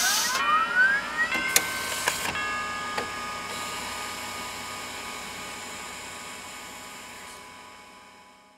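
Electronic sound-design effect for an animated title: a noisy whoosh with a tone sliding up in pitch over about the first second, a couple of sharp hits, then a chord of steady ringing tones that fades away slowly over several seconds.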